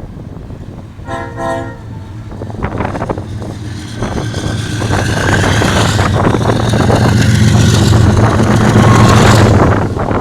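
A diesel locomotive gives one short blast of its multi-tone horn about a second in, then its engines and the rumble of the train grow steadily louder as it approaches, loudest near the end.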